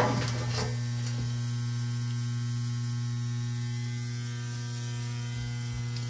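Electronic boiler water feeder pump (Hydrolevel VXT) running with a steady hum as it refills the steam boiler after the probe-type low water cutoff tripped on low water.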